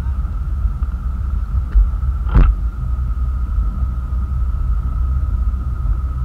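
Motorboat running: a steady low rumble with a faint, steady high whine over it, and one sharp knock a little over two seconds in.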